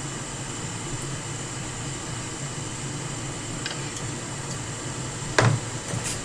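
Steady whir of a small fan running at the repair bench, with a sharp knock about five and a half seconds in.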